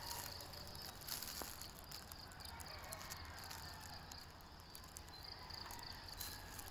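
Quiet garden ambience: a steady, high-pitched insect drone, with a few faint clicks.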